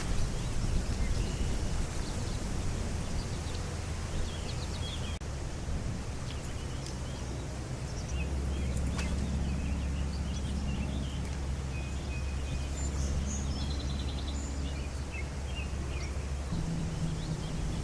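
Wind buffeting the microphone in a steady low rumble, with small birds chirping on and off.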